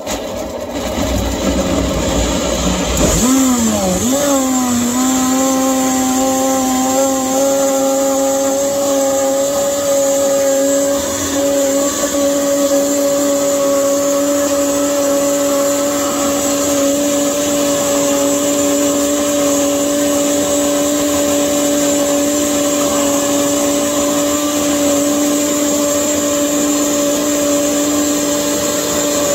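Vitamix blender switched on and turned up: the motor climbs in pitch, wavering for a moment a few seconds in, then runs at a steady high speed, blending a fruit-and-juice smoothie.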